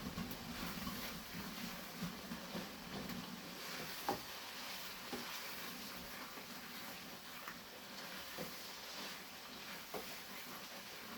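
Chicken and spice masala sizzling faintly in a pan as it is stirred and fried, with a few sharp clicks of the spoon against the pan, the loudest about four seconds in.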